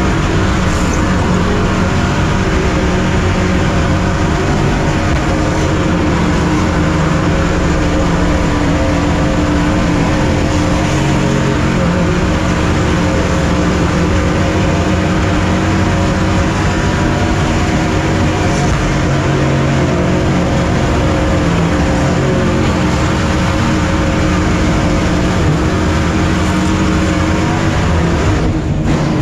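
Supercharged burnout car's engine held at steady high revs through a long burnout, heard from inside the cab.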